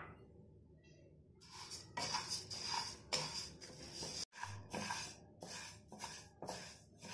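Dry split mung dal being stirred in a nonstick pan as it roasts: a spatula rakes and scrapes through the dry lentils in short strokes, about two or three a second, starting after a second or so of near quiet.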